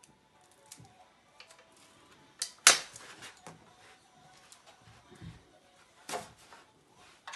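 Metal parts of a Mongoose Stance Elite Gold stunt scooter (T-bar and deck) knocking and clicking as they are handled out of the box: a few sharp knocks, the loudest a little under three seconds in, another about six seconds in.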